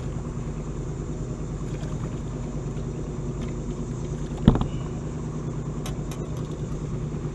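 Steady low hum of a boat motor, with a single sharp thump about four and a half seconds in as the bass is swung aboard onto the deck.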